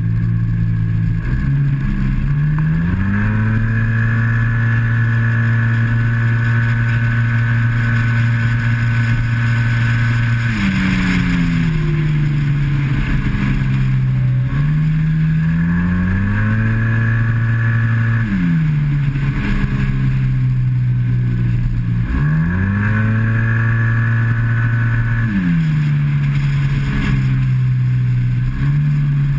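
Yamaha TMAX maxi-scooter's parallel-twin engine at speed: the note climbs, then holds flat as the automatic belt (CVT) transmission keeps the revs steady, and falls away each time the throttle is closed for a corner, several times over. Wind rushes over the onboard microphone throughout.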